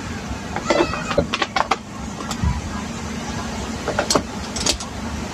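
Scattered light clicks and taps of a screwdriver and a plastic outlet cover being handled and fitted, in two clusters about a second in and about four seconds in, over a steady low hum.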